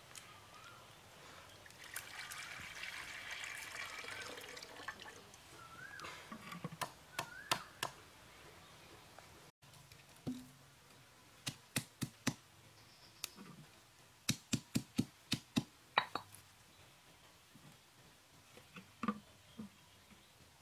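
Water poured from a bamboo tube into a clay cooking pot for a few seconds, with birds chirping around it. Later comes a run of sharp knocks and clicks, a few a second, and a couple more knocks near the end.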